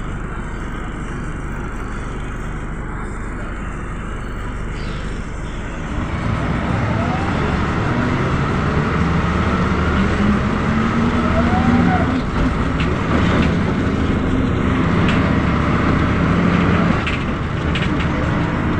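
Mercedes-Benz O405 city bus heard from inside the cabin while driving: engine running under road and tyre noise. About six seconds in the engine note grows louder and rises in pitch as the bus accelerates, then eases off near the end.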